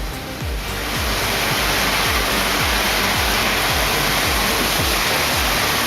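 Background music with a steady low beat over a loud, steady rushing noise that swells up in the first second.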